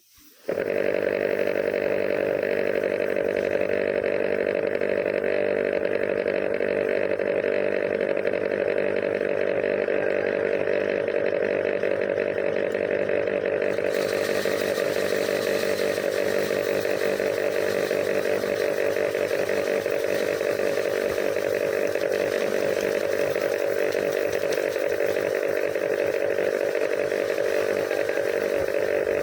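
Paddy threshing machine running steadily at full speed. About halfway through the sound turns brighter, with more hiss added.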